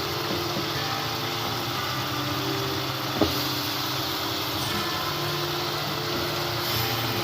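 Steady hum of a small motor running, with one sharp knock about three seconds in.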